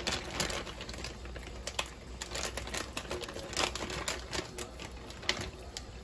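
Zip-top plastic bag crinkling and rustling in quick, irregular crackles as it is handled with wet fish inside, over a kitchen tap running steadily into a stainless-steel sink.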